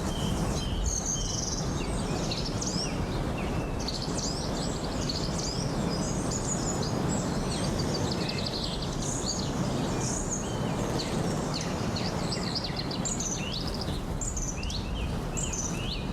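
Many small birds chirping and singing, with short quick overlapping calls throughout, over a steady rushing background noise.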